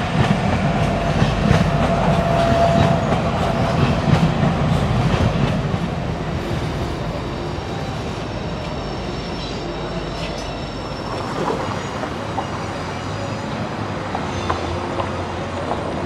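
A DART Red Line light rail train running past close by. Its noise, with a steady whine in it, is loudest for the first few seconds and fades after about six seconds as it moves off.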